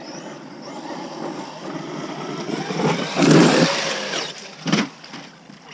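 Large brushless electric RC monster truck driving hard on dirt: motor whine and tyre noise build to a peak about three seconds in. A single sharp thump follows near the end.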